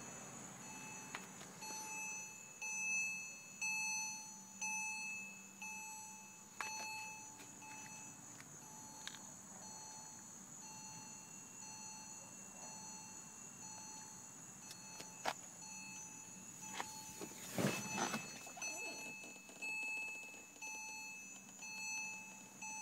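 Porsche Cayman's electronic warning chime repeating about once a second, with the key in the ignition and the driver's door open. A few knocks and a brief rustle come about three quarters of the way through.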